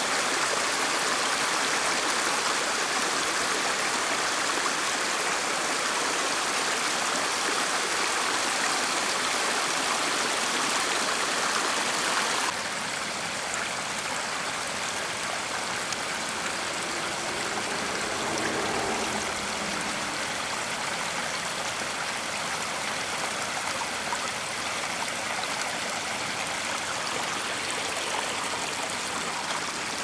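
Small mountain stream running over rocks and little cascades: a steady rush of water. About twelve seconds in it drops suddenly to a quieter, steady flow.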